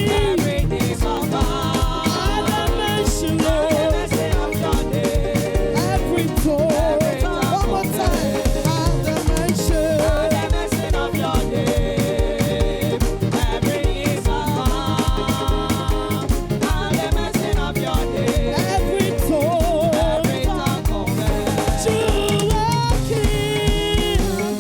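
Upbeat live praise music from a band, with a steady dance beat and melody lines over it.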